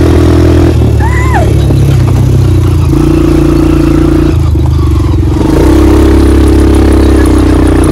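Quad bike engine running steadily under way, its pitch stepping up and down a couple of times as the throttle changes. A brief high rising-and-falling call sounds about a second in.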